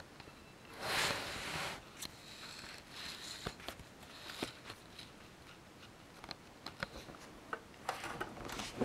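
Small handling noises: a brief rustle about a second in, then scattered light clicks and taps, more of them near the end as the model bus is touched and moved on the table.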